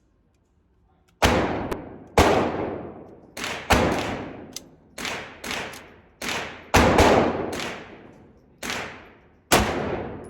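A 9mm pistol being fired, about a dozen shots at an uneven pace starting about a second in, some in quick pairs, each shot followed by a long echoing decay.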